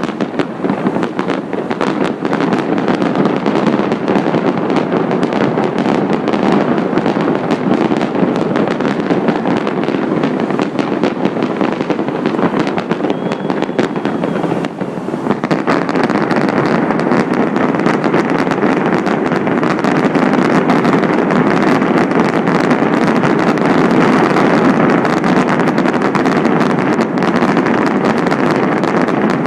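Fireworks going off in a dense, unbroken barrage of bangs and crackles. About halfway through the sound turns brighter, with more hissing crackle.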